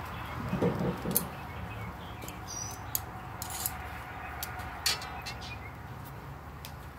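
Vegetables sizzling in a perforated grill wok over a lit gas grill: a steady hiss with a low hum under it. A few sharp metallic clicks come about 1, 3 and 5 seconds in, and a bird chirps faintly in the background.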